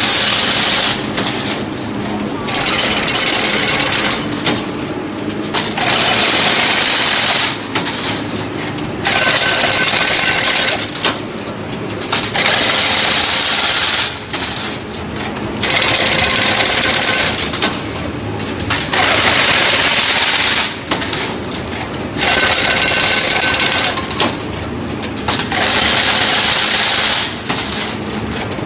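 Fully automatic single-wire chain link fence machine running and weaving diamond mesh. A rapid clatter rises in loud stretches of about one and a half seconds, roughly every three seconds, with a quieter mechanical running sound between them.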